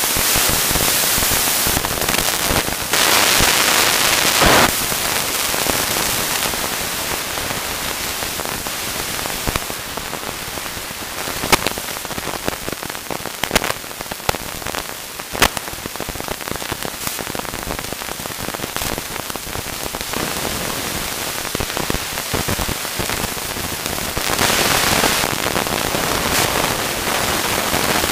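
Mountain bike ridden down a dirt and leaf-litter forest trail: a steady rush of wind and tyre noise, broken by many sharp clicks and rattles as the bike jolts over the ground. The rushing swells louder about three seconds in and again about twenty-five seconds in.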